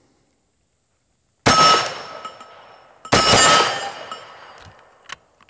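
Two rifle shots from an M1 carbine in .30 Carbine, about a second and a half apart, each with a long fading echo and a ringing steel target. Near the end come a few faint clicks of the action. With this Aguila ball ammunition the carbine is sticking fired cases and failing to run.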